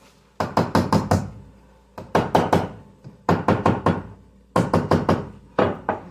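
Jar of pasta sauce rapped lid-first against a countertop in five quick bursts of about four or five hard knocks each, to loosen a stuck lid.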